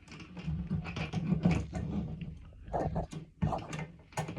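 Irregular rattling and scraping of an old tub drain's trip-lever plunger linkage being worked inside the overflow tube. The plunger is stuck and won't come free.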